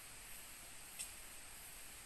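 Quiet rainforest ambience: a steady high-pitched hiss, with one short sharp click about a second in.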